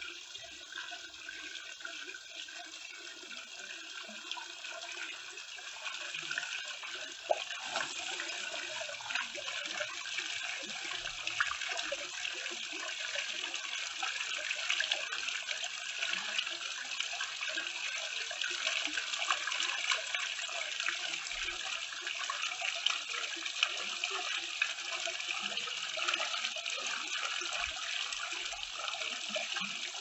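Water splashing steadily down the tiers of a tiered garden fountain into its basins, a continuous even patter; it grows a little louder about six seconds in.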